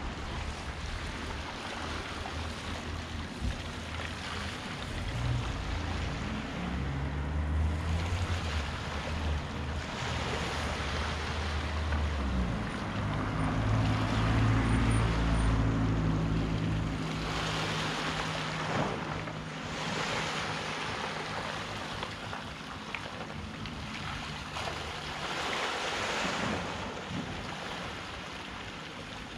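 Sea waves washing in and ebbing every several seconds, with wind on the microphone. Under them a low engine drone, loudest around the middle, dies away about two-thirds of the way through.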